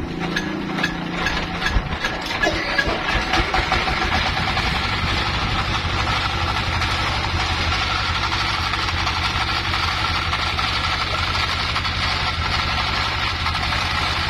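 An engine runs with irregular knocking for the first few seconds, then settles into a steady run with a low drone and a constant higher whine.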